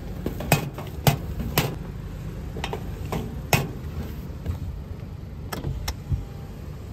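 Steady low rumble of a car running, heard from inside, with a series of sharp, irregular clicks and knocks over it.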